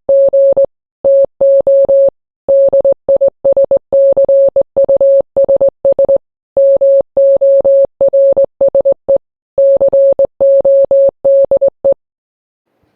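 Morse code beeping: a single steady mid-pitched tone keyed on and off in quick short dots and longer dashes, with gaps between letters and words. It stops about a second before the end.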